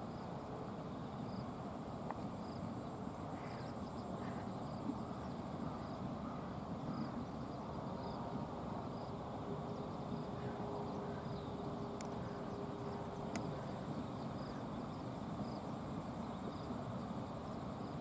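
Steady outdoor rushing noise by a river, with an insect chirping faintly at an even pace, a little more than once a second.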